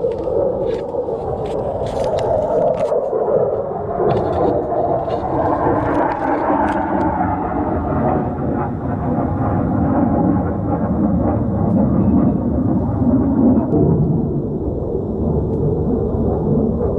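A jet aircraft passing overhead, a low rumble that slowly falls in pitch and swells again near the end. In the first seven seconds a few sharp clicks and knocks come from the camera being handled.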